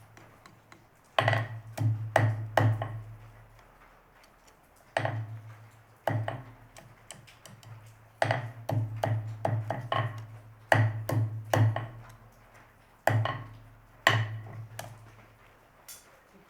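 Blacksmith's hammer striking metal on an anvil in short runs of ringing blows with pauses between: about four blows a second in, two single strikes around five and six seconds in, a longer run of rapid blows from about eight to twelve seconds, and a few more near the end.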